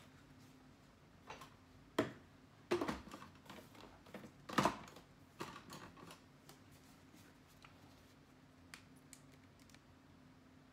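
Kitchen utensils knocking and scraping against containers as tahini is measured and added to the food processor bowl: a run of light knocks between about one and six seconds in, the loudest two near two seconds and four and a half seconds, then a few faint ticks, over a faint steady hum.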